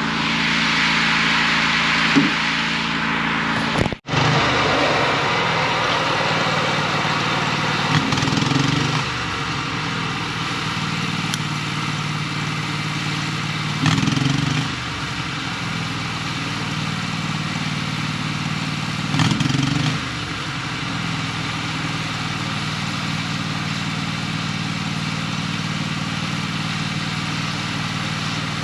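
Diesel engine of an earthmoving machine running steadily, with three brief surges in level spaced about five to six seconds apart and a sudden break about four seconds in.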